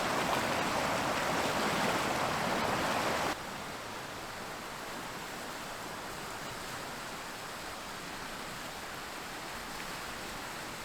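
Creek waterfall rushing steadily in full winter flow; about three seconds in the sound drops abruptly to a quieter, steady rush.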